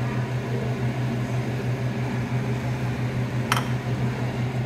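A steady low electric hum from a kitchen appliance's motor or fan, with one sharp click about three and a half seconds in.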